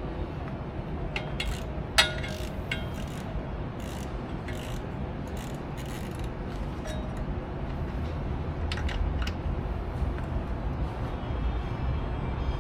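Metal hand tools clinking and clicking during work on an outboard motor, with one sharper metallic clink about two seconds in that rings briefly, over a steady low rumble.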